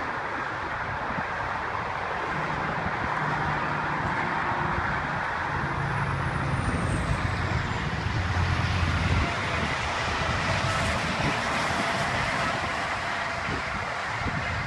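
Road traffic noise with a vehicle's engine drone passing by, swelling and fading, loudest about eight or nine seconds in.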